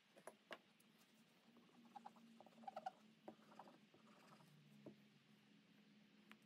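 Near silence with faint scattered clicks and taps from a plastic glue bottle and small wood blocks being handled on a workbench, a quick cluster of small clicks about three seconds in, over a faint steady hum.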